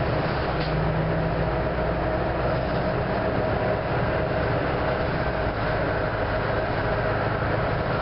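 Orion V diesel transit bus under way, heard from inside: a steady diesel engine and road rumble.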